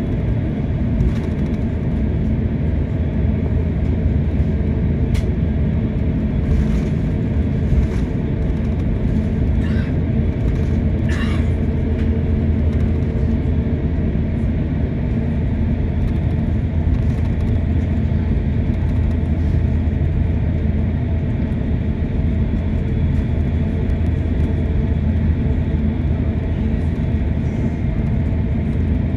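Steady low rumble of an airliner taxiing to the gate after landing, heard from inside the cabin, with a few faint ticks.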